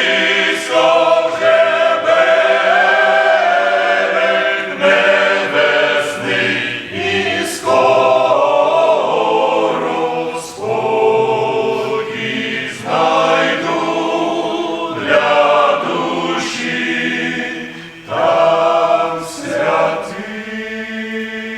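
Men's choir singing a hymn in Ukrainian, with phrases rising and falling and settling into a long held chord near the end.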